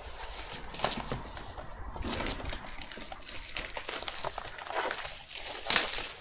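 Trading-card box packaging crinkling and rustling in irregular crackles as it is handled, with a louder burst near the end.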